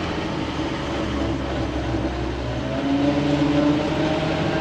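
Old 1966 Ford grain truck running under way, with a steady engine drone. A whine rises slowly from about three seconds in as the truck picks up speed.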